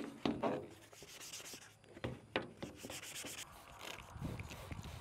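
Scotch-Brite pad scrubbing a pickup's bumper trim piece in irregular rubbing strokes, taking old gunk off the trim before it is painted.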